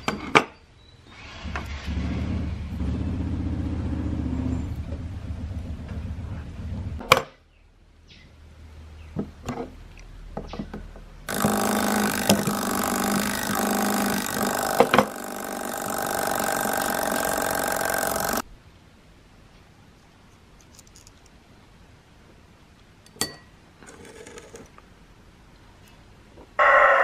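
Sharp metallic clicks and taps from the brass movement of an old wall clock being handled and taken apart with a screwdriver and pliers. Two long stretches of steady machine noise, a low hum and then a brighter one, start and stop abruptly.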